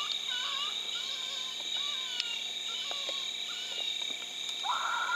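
Night insects, crickets and the like, chirring steadily in several high, level bands, with faint short wavering sounds underneath.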